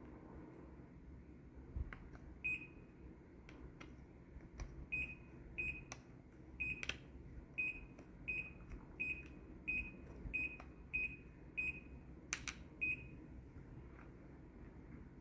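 Indoor unit of a Daikin FTKV35NVM4 split air conditioner beeping in a quick series of about a dozen short, high beeps, roughly one every half to one second. Each beep is the unit acknowledging a remote-control command. A few sharp clicks fall between the beeps, over a steady low hum.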